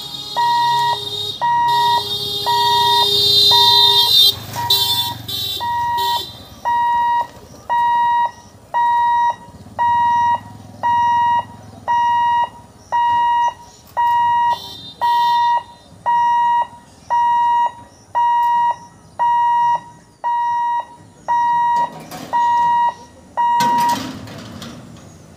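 Level-crossing warning buzzer at a railway boom barrier, beeping steadily about once a second to warn that the crossing is closing. It stops near the end with a loud clatter as the barrier comes down. A louder rushing noise with a high whine runs under the first four seconds.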